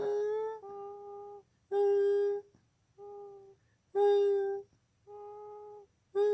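A sleeping baby and a man trading short, steady hummed notes back and forth at about the same pitch, seven in all, louder and softer ones alternating.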